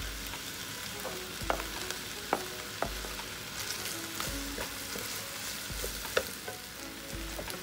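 Beef, mushrooms, carrots, celery and bell pepper strips sizzling in a large frying pan while being stirred with a wooden spoon: a steady hiss with occasional sharp clacks of the spoon against the pan.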